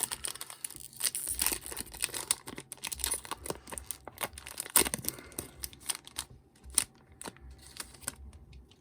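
A 2010 Topps hobby card pack's wrapper being torn open and crinkled by hand, a dense crackle that thins out to scattered crinkles and clicks in the second half.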